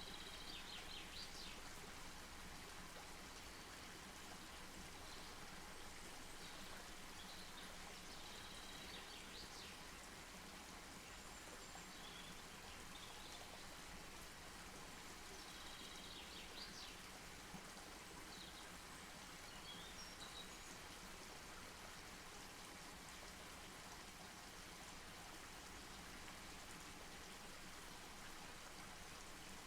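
Campfire burning quietly: a low steady hiss with faint crackles, and a few faint high chirps in the first half.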